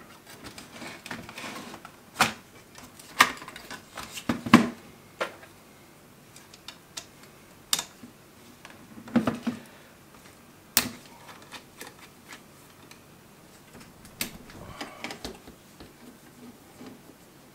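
Irregular sharp clicks and light knocks of small plastic and metal parts as a car cassette player is pried and taken apart by hand, about a dozen spread unevenly with quiet gaps between.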